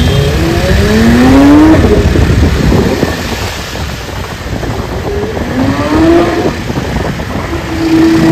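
Porsche 992 GT3 RS's naturally aspirated flat-six accelerating twice, its pitch rising for about a second and a half at the start and again briefly past the middle, over steady street-traffic noise.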